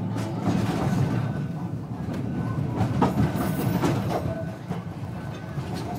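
Blackpool Balloon double-deck tram running along the track, heard from the driver's cab: a steady rumble and motor hum, with several sharp knocks from the wheels on the rails.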